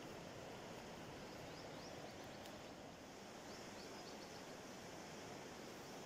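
Steady rush of a swollen, fast-flowing river in flood. A bird twitters faintly twice, a second or so each time.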